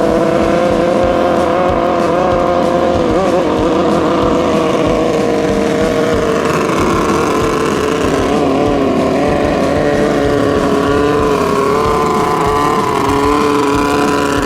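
Racing speedboat engines running flat out at high revs, a steady loud howl of several overlapping engine notes. One note dips and climbs again about eight or nine seconds in.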